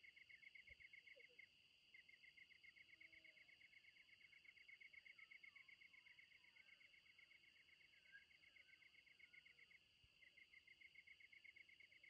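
Insects chirping: a fast, even pulsing trill over a steady high drone, the trill pausing briefly twice. A few faint bird calls sound in the middle.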